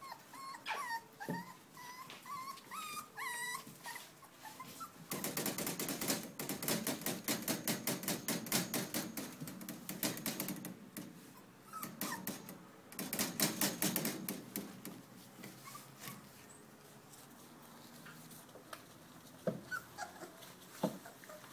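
Month-old bully puppies whimpering in high, wavering squeals. Through the middle come long runs of rapid crinkling clicks as they scramble over the rustling puppy pads, and a few fainter whimpers come near the end.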